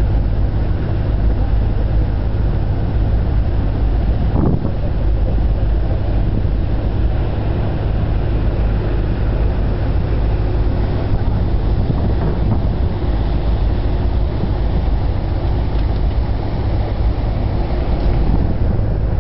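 Ferry engines running with a steady low drone, heard from on board with wind buffeting the microphone.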